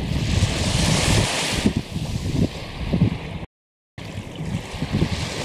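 Small waves washing up on a sandy shore, with wind buffeting the microphone in uneven gusts. The sound cuts out completely for about half a second a little past halfway.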